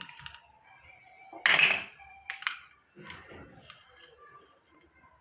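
A loud thunk about a second and a half in, followed shortly by a sharper click, over faint background music.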